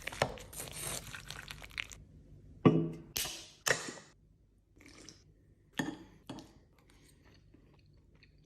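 A run of sharp knocks, cracks and crunches, busy for the first couple of seconds, then about five separate strikes spaced roughly half a second to a second apart, the loudest about three seconds in, fading to faint near the end.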